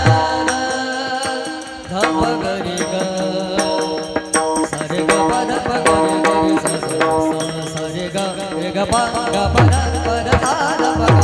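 Devotional kirtan music: a gliding sung melody over steady held notes, with deep hand-drum strokes that come in strongly near the end.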